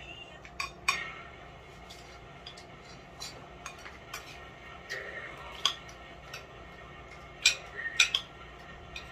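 Metal spoons clinking against a ceramic plate and an aluminium foil tray while rice is eaten, heard as scattered sharp clicks. The loudest clicks come near the end.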